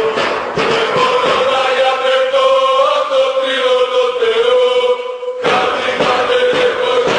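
Music track of a group of voices chanting a song in long held notes. The bass drops away through the middle and cuts back in abruptly about five and a half seconds in.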